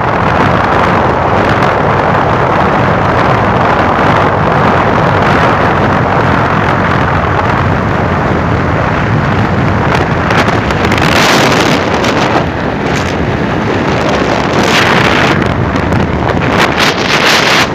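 Wind rushing over the microphone of a motorcycle ridden at speed, a loud steady roar with the bike's running noise under it. From about ten seconds in, gusts break through again and again as harsh bursts of hiss.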